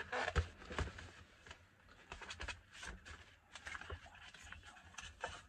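Paper gift bag rustling and crinkling as it is handled, in a string of short, irregular crackles.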